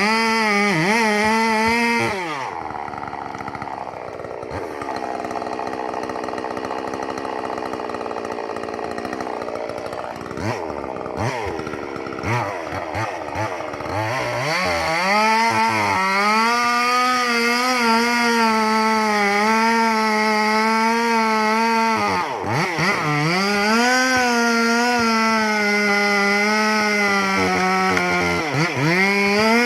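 Two-stroke chainsaw running at full throttle, its pitch wavering under load as it cuts wood. About two seconds in it drops to a lower, quieter speed and runs unevenly. From about halfway it revs back up to full speed, dipping briefly twice.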